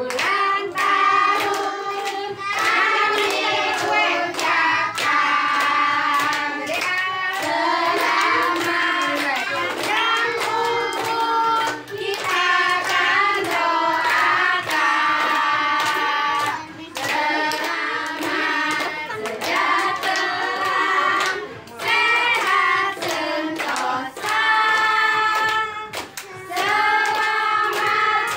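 A group of women and children singing a birthday song together, with hand-clapping along in time.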